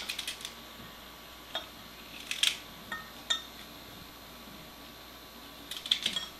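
A small knife clinking against a glass Pyrex measuring cup as cauliflower florets are cut off and dropped into it: scattered clusters of light clicks and taps at the start, around two and a half to three seconds in, and again near the end.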